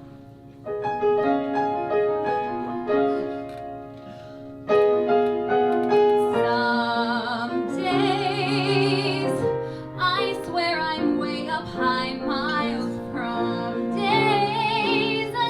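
Live song accompaniment on piano: chords and melody notes enter about a second in. From about six seconds on, a woman's voice joins, singing long held notes with vibrato over the piano.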